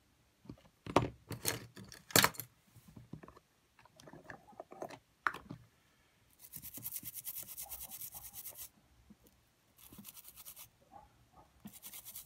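Sharp clicks and knocks of small plastic parts being handled in an opened Sony EX999 cassette Walkman mechanism. These are followed by three stretches of fast, even scrubbing strokes as a small gear is scrubbed clean of its dried old lubricant.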